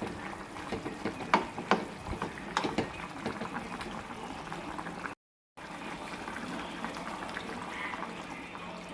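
Kitchen sounds: a steady watery hiss of liquid with several sharp knocks or clinks, like utensils or cookware, in the first few seconds. The sound cuts out completely for a moment about five seconds in.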